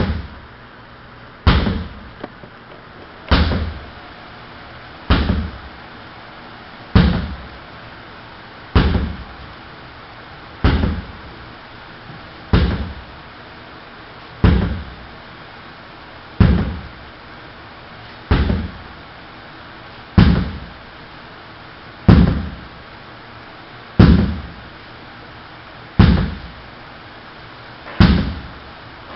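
Sledgehammer strikes repeating steadily, one about every two seconds, about fifteen in a row. Each is a sharp, heavy impact that dies away within about half a second.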